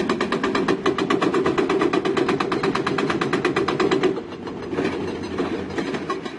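Heavy diesel earthmoving machine working with a rapid, even mechanical clatter. It drops to a quieter level about four seconds in.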